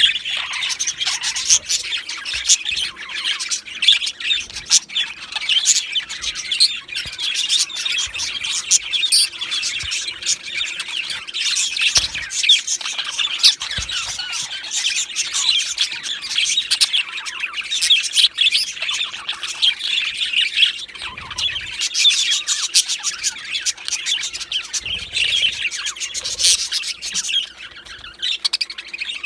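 Male budgerigars chattering and warbling without pause, a dense stream of quick high chirps and squawks.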